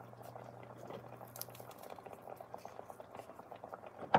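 Pot of fish simmering in butter on the stove, a steady gentle bubbling crackle. A single sharp click comes right at the end.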